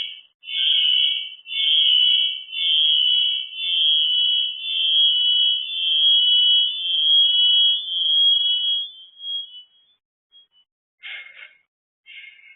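An electronic alarm beeping: high-pitched pulses about once a second that run close together for about nine seconds, then stop. A few short chirps follow near the end.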